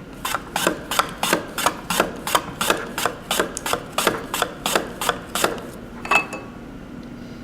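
Cucumber being sliced on a handheld mandoline slicer with a ceramic blade: a steady run of about sixteen quick slicing strokes, roughly three a second, then one last stroke about half a second later.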